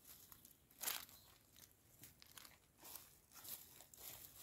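Near silence with faint, irregular rustling and crunching, one slightly louder crunch about a second in.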